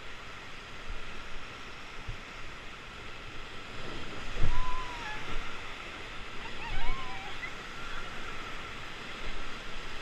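Whitewater rapids rushing steadily around an inflatable raft, with two loud thumps about four and a half and seven seconds in.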